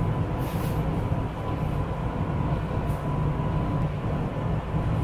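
Steady low drone of kitchen ventilation machinery, with a faint steady whine above it and two brief soft hisses.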